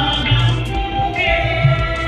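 Devotional aarti singing with musical accompaniment: a voice holds long, gliding notes over repeated low beats.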